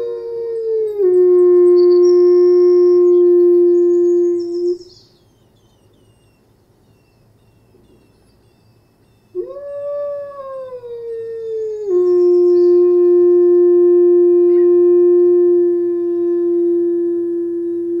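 Gray wolf howling close to the microphone, about 50 to 60 feet off, with its overtones clearly heard. The first howl slides down and holds a steady low note until about five seconds in. After a pause, a second howl rises, falls and holds the same low note to the end, while small birds chirp faintly and high above it.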